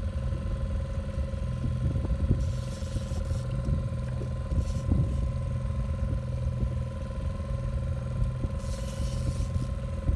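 Boat outboard motor running steadily: a low, even hum with a faint constant whine above it and an uneven low rumble. There are two short rushes of hiss, about two and a half seconds and nine seconds in.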